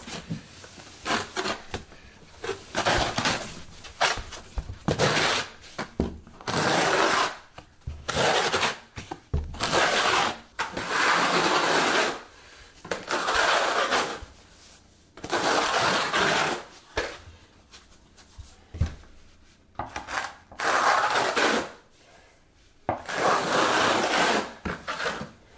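Steel notched trowel scraping mortar across a plywood subfloor, spreading it and combing it into ridges. It goes in many separate strokes of a second or two each, with short pauses between them.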